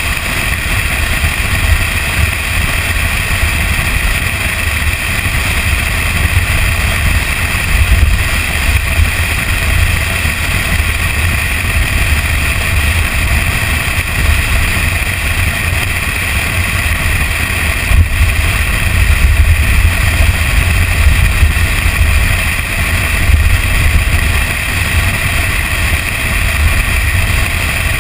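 Toyota Tacoma pickup driving along a sandy dirt trail: a steady, loud low rumble of engine, tyres and wind, picked up by a camera on the hood.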